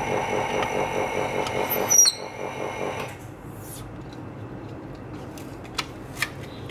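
A polarizer-film laminating machine's motor running steadily with a rapid, even pulse and a thin high whine, with a short squeak about two seconds in; it cuts off about three seconds in, leaving a few light clicks.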